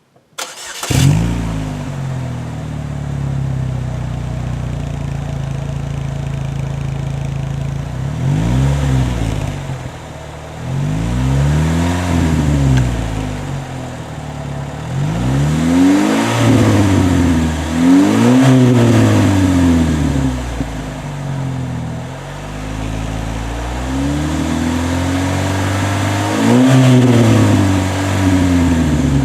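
Chevy HHR's four-cylinder engine starting about a second in through a newly fitted GM Performance/Borla exhaust system, settling to idle, then revved about five times, each rev rising and falling in pitch.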